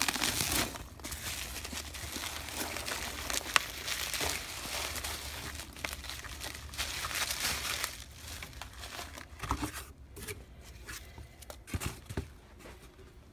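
Bubble wrap and foam packing peanuts crinkling and rustling as hands dig through a cardboard box and pull out a bubble-wrapped item. The rustling is continuous at first, then thins to separate, quieter rustles in the last few seconds.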